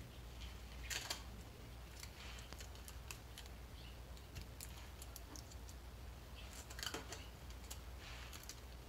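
Faint rustling and small clicks as Kapton tape is handled and pressed down over a sealed lead-acid battery's terminals, with a slightly louder rustle about a second in and again near seven seconds.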